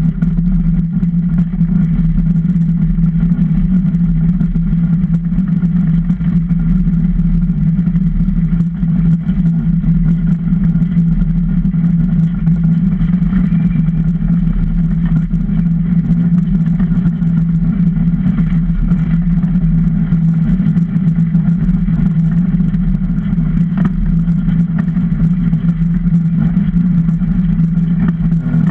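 Super DN iceboat's steel runners sliding fast over lake ice, the wooden hull carrying it as a loud, steady low drone with a rushing hiss above it.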